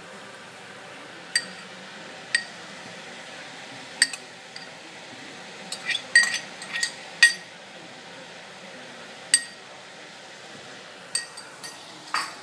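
Metal spoon clinking against ceramic bowl and plate in scattered light taps, each with a short ring, most of them in a quick run about six to seven seconds in.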